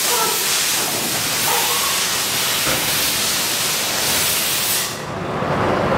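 A loud, steady hiss like rushing air or gas that cuts off about five seconds in.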